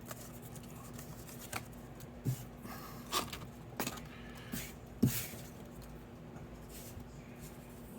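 Handling of paper cardstock cut-outs: light rustling with a few sharp taps and clicks, the loudest about five seconds in, over a faint steady hum.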